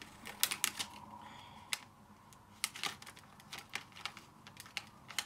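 Thin clear plastic snack container clicking and crackling as it is handled and pieces are picked out of it: irregular sharp clicks.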